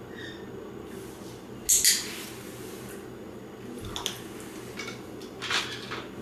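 A handheld training clicker gives one sharp double click about two seconds in, marking the puppy lying down, followed by a few light footsteps and small knocks on a wooden floor over a steady low room hum.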